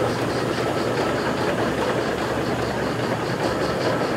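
Steam traction engine running as it drives slowly, with a steady, even beat of about four strokes a second.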